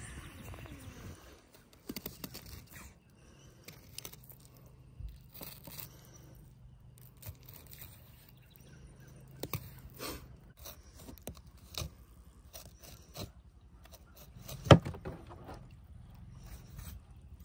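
Fillet knife cutting and scraping through a catfish's flesh and skin on a plastic cooler lid, in irregular small scrapes and clicks, with one sharp knock near the end.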